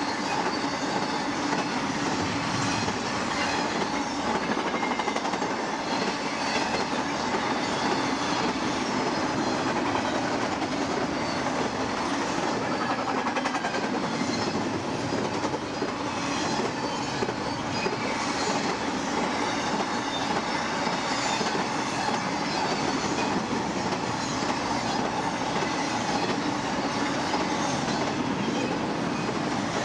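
BNSF freight train rolling past at speed: a steady, unbroken rumble and rush of steel wheels on rail, with a faint steady ring running through it.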